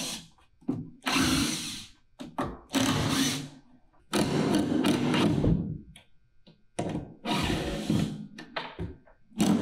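Power drill backing drywall screws out of a wooden platform frame in several short runs of about a second each, stopping and starting. The bit skips and chatters in the screw heads, a horrible skipping bit sound, because the awkward stance leaves too little force behind the drill.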